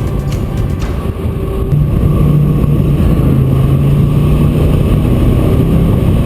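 Jet boat engine running under way, with a steady low drone that gets louder and a little higher about two seconds in.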